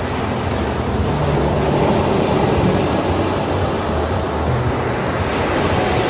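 Small sea waves breaking and washing up a sandy beach: a steady rushing surf.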